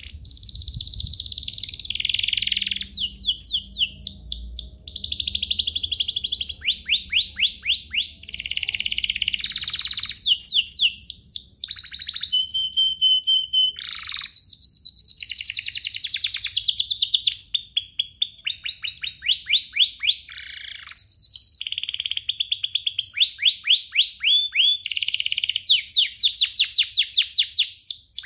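Domestic canary singing a long, unbroken song of fast trills: rapid runs of repeated sweeping notes, broken here and there by short steady whistled notes.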